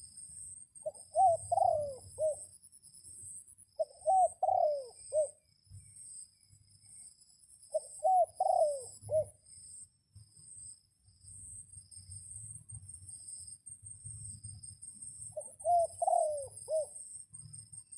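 A dove cooing: four separate multi-note coo phrases a few seconds apart, each lasting about a second and a half. A steady, pulsing high-pitched insect-like drone runs underneath.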